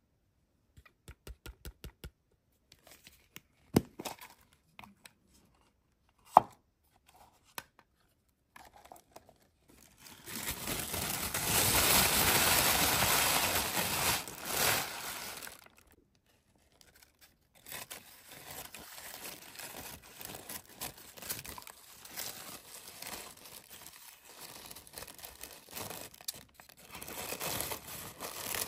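Thin pink tissue wrapping paper crinkling and rustling as it is crumpled in the hands. It is loudest for about five seconds midway, with a few light clicks and taps before it.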